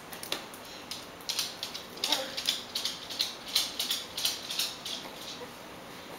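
Faint, irregular light clicks and taps of small handling noises, several a second, with a brief soft vocal sound about two seconds in.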